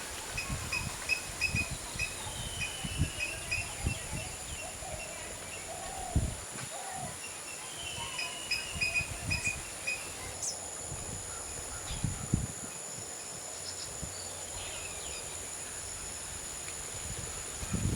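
Outdoor bush ambience: a small bird gives several quick series of short chirps over a steady, high insect whine, with irregular low thumps.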